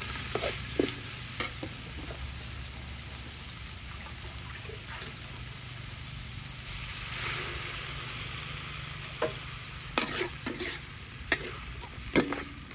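Pig's liver stir-frying in a steel wok, sizzling steadily, with a metal spatula scraping and clacking against the wok in sharp strikes: a few near the start and several more near the end. The sizzle swells briefly around the middle.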